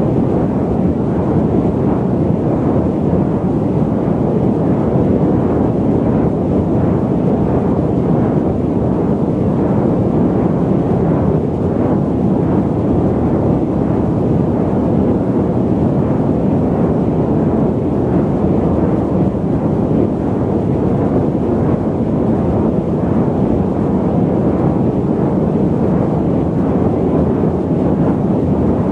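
Jet airliner cabin noise in flight: a steady, deep rushing hum with little hiss above it, unchanging throughout.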